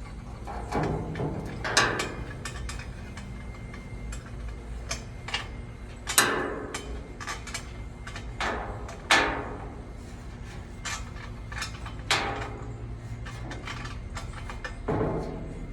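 Hand tools working on metal tractor exhaust parts: light scattered clicks with about five louder ringing metal clanks a few seconds apart.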